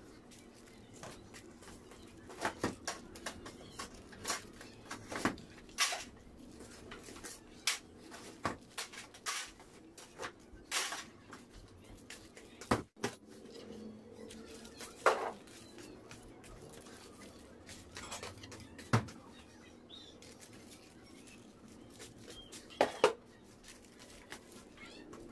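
Scattered, irregular clicks, taps and paper rustles from handling pleated paper cupcake liners and a metal spatula against an aluminium baking tray, as sliced macaroons are lifted out and set into the liners.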